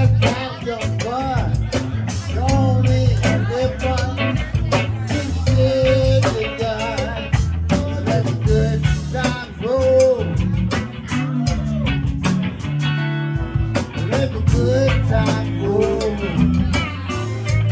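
Live blues band playing: a lead electric guitar bending notes over bass and a drum kit keeping a steady beat.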